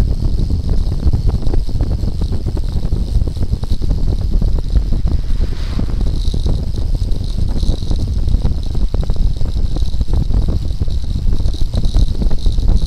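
Wind buffeting the microphone of an SJ1000 action camera on a road bike descending at speed, with a constant rapid rattling and knocking from road vibration shaking the camera on its homemade handlebar mount.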